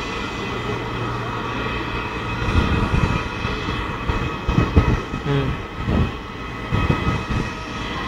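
Jet airliner engines running, a steady hum with a constant high whine. From about two and a half seconds in, irregular low thumps and rumbles come and go over it.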